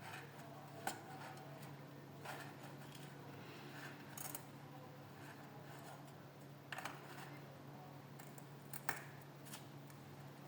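A handful of faint, scattered clicks and scrapes of a blade cutting into a stuck piece of plastic, over a steady low hum.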